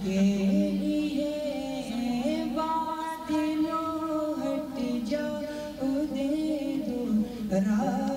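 A young man singing an Urdu nazm into a microphone, a single melodic voice with long held notes that slide between pitches.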